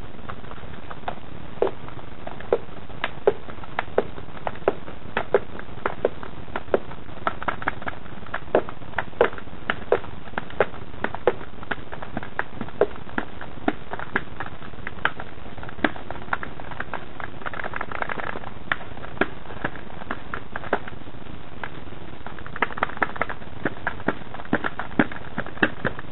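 Paint roller being worked through wet paint in a plastic paint tray, giving irregular sticky clicks and crackles about one or two a second, thickest near the end, over a steady hiss.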